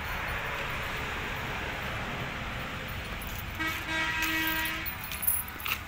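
A vehicle horn sounds one steady tone for just over a second, a little past halfway through, over a steady rushing noise from the phone being carried.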